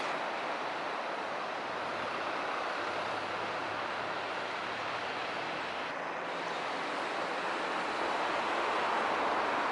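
Steady wash of city road traffic and distant train noise on the elevated line, growing a little louder near the end.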